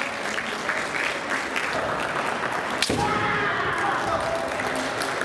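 Kendo fencers' shouted kiai, with one sharp crack of a bamboo shinai strike almost three seconds in, followed by a long drawn-out shout.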